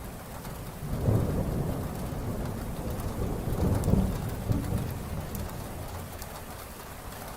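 Heavy rain falling steadily, with a roll of thunder that rumbles in about a second in, swells again around four seconds and fades away.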